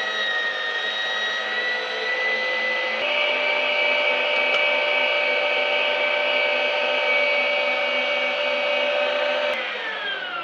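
Electric meat grinder's motor running steadily under load, grinding persimmon, dried apricots and sprouted wheat into a paste; its pitch steps up slightly about three seconds in. Near the end it is switched off and winds down with a falling whine.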